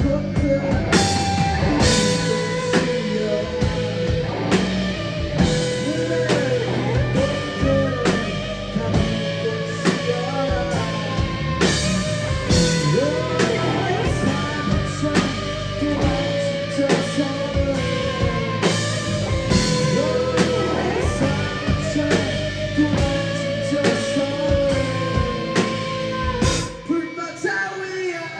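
Live rock band playing: drum kit and electric guitar with a singer holding long notes. The music briefly drops away near the end, then comes back in.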